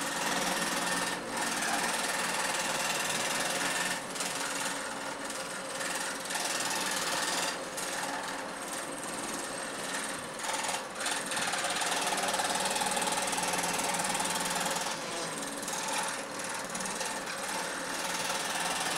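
Table-mounted jigsaw running, its blade going rapidly up and down with a steady mechanical chatter as it cuts a fretwork pattern in a wood board. The noise dips briefly a few times.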